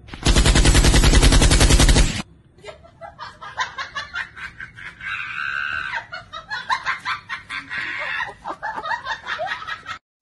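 A loud burst of rapid-fire clatter like automatic gunfire, lasting about two seconds, then a stretch of clucking, chicken-like calls.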